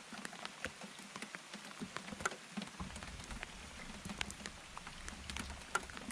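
Light rain pattering: scattered, irregular drops ticking on a surface over a soft steady hiss.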